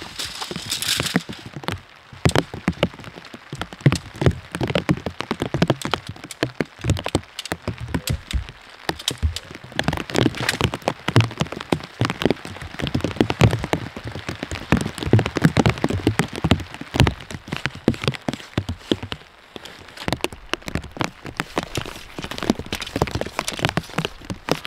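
Tent being pitched by hand: the tent's fabric rustling and crinkling, with tent poles clicking and clattering as they are fitted together and fed through the fabric. The crackling comes and goes in uneven spells.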